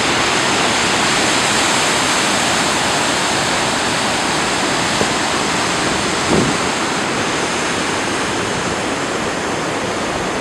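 Glacial meltwater river rushing steadily through rapids over smooth rock slabs, a dense continuous churn of white water.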